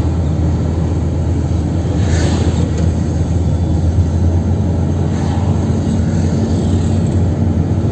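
Steady engine and road noise heard from inside a moving car, a deep drone with no break; a steady hum joins in about six seconds in.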